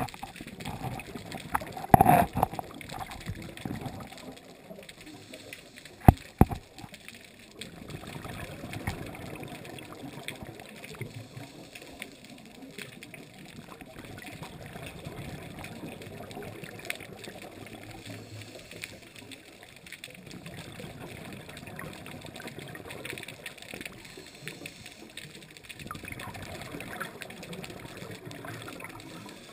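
Muffled underwater noise heard through a waterproof action-camera housing: a steady gurgling wash of water. Sharp knocks come about two seconds in and twice around six seconds in.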